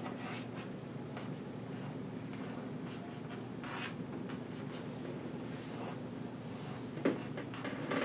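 Chalk writing on a blackboard: short scratchy strokes and taps at irregular intervals, with a louder knock about seven seconds in, over a steady low room hum.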